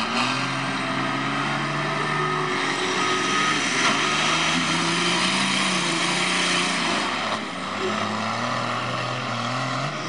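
Cummins diesel engines of Dodge mega trucks working hard under throttle, pitch climbing and dipping several times. A loud rushing noise lies over them for a few seconds in the middle.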